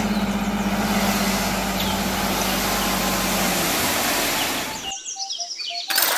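Small dump truck's engine running steadily while its hydraulic hoist raises the bed and a load of soil slides out of the back. The sound cuts off abruptly about five seconds in, followed by a few faint chirps and one sharp clack.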